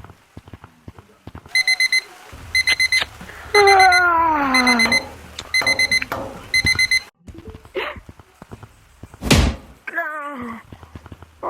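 An electronic alarm beeping in quick groups of four, about one group a second, stopping about seven seconds in. A voice gives a long falling groan during the beeping, and near the end there is one loud thump followed by a short falling vocal sound.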